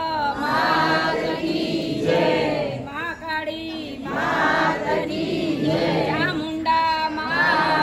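A crowd of worshippers, mostly women, singing a Navratri aarti hymn together in phrases of a second or two.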